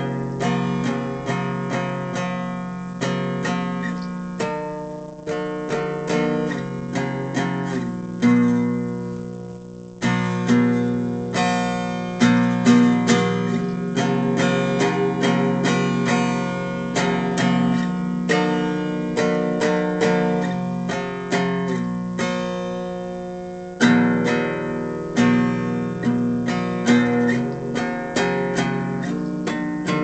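Acoustic guitar played: chords strummed and struck over and over, each ringing out and fading before the next. The playing tails off twice and comes back in with a loud strum, once about ten seconds in and again about two-thirds of the way through.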